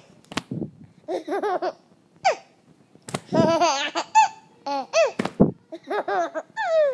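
Baby laughing in bursts of short, high-pitched laughs with pauses between, including a falling squeal about two seconds in and a longer laughing run around the middle. A few sharp knocks are heard among the laughs.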